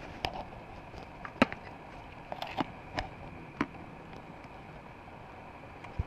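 Camera handling noise: about six short, sharp clicks and knocks spread irregularly over a faint steady hiss, the loudest about a second and a half in.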